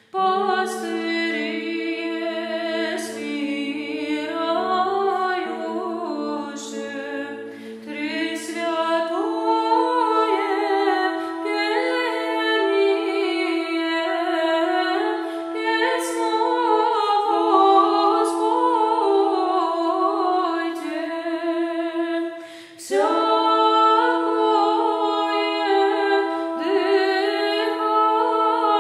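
A choir of nuns singing Byzantine chant a cappella in women's voices: a melody moves over a steadily held drone note (the ison). The drone shifts up to a higher note about a third of the way in, and the singing breaks off for a brief pause about three-quarters through before going on.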